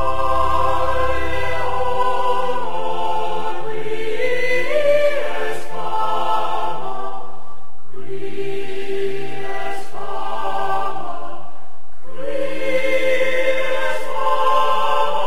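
Background music of sustained choral chords, held for several seconds each and changing about every four seconds.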